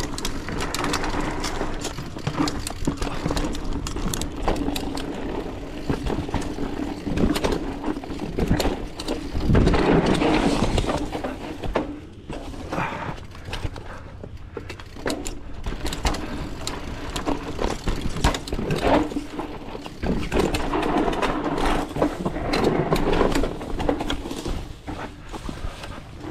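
Mountain bike riding fast down a dirt singletrack trail: tyres rolling over dirt and roots, with the chain and frame rattling and knocking over bumps. The rattling is loudest about ten seconds in.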